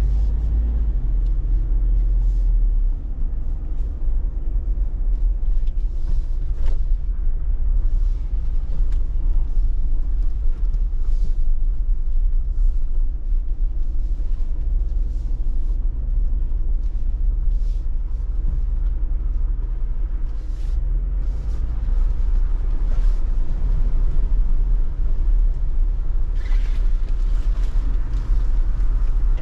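Jeep Wrangler Rubicon 392's 6.4-litre HEMI V8 running with a steady low rumble, picking up somewhat about two-thirds of the way through. Scattered light clicks and knocks sound over it.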